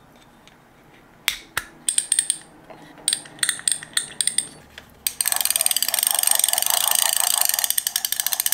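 A few small metal clicks and snaps as reel parts are fitted. About five seconds in, a Bache Brown Spinster Mk.VI spinning reel is turned over and its clicker ratchets in a rapid, even run of clicks, its clicker gear freshly greased to soften it.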